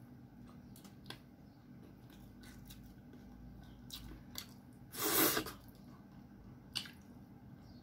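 Close-up eating sounds of someone eating by hand: faint chewing and small mouth clicks, with one louder, short rush of noise about five seconds in.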